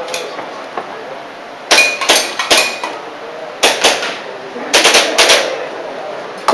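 Airsoft pistol shots fired in three rapid strings of two to four shots each, sharp cracks with a short ring after them.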